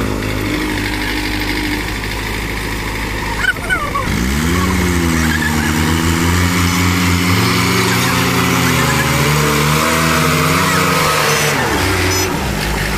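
Diesel engines of a JCB 3DX backhoe loader and a Swaraj 744 tractor revving up hard about four seconds in and held at high revs under load, pulling a loaded sugarcane trolley out of mud, then dropping back near the end.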